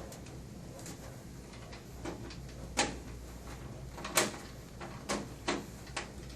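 Scattered sharp clicks and knocks of a screwdriver and hand working a screw out of a metal panel on a Sharp AR-M355N copier, about half a dozen at irregular intervals, over a low hum.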